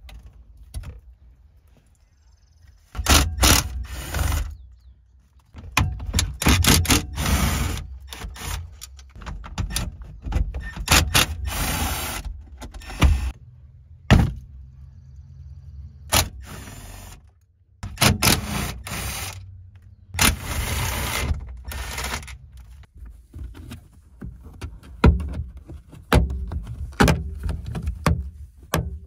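Hands working at car rear-deck speakers: tugging and unplugging speaker wires under the parcel shelf, then prying up the plastic speaker grille. Irregular rustles, clicks and knocks with short pauses.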